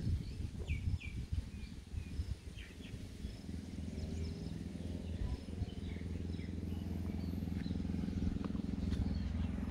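Birds giving scattered short chirps in open farmland, over a low steady engine hum that comes in about three seconds in; irregular low knocks early on.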